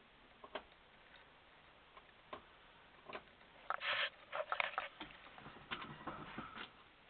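Faint handling noise inside a car's cabin: a few scattered light clicks, then a denser run of clicking and rustling from about four to nearly seven seconds in.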